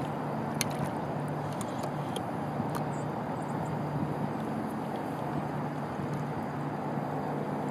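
Hooked coho salmon thrashing at the water's surface beside a kayak: a few small, sharp splashes scattered over a steady rushing background with a low hum.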